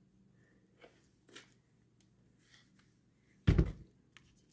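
Plastic air filter housing parts of an ATV being handled: a few faint clicks and rustles, then one loud knock about three and a half seconds in.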